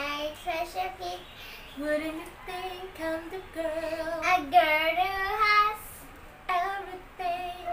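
A young girl singing a tune unaccompanied, in phrases of held notes with a wavering pitch.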